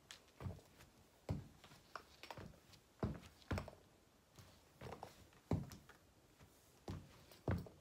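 Footsteps of Nike Zoom Fly running shoes on a hardwood floor: a dozen or so soft, irregular thuds as the wearer steps in place and shifts his feet.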